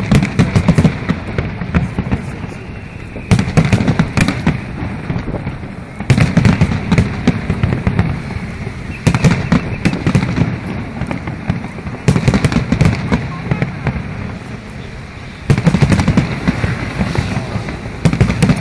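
Aerial fireworks shells bursting in volleys about every three seconds, each volley a cluster of sharp bangs, with crackling from the burning stars in between.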